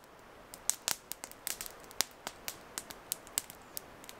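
Campfire of burning logs crackling, with many irregular sharp pops over a faint hiss.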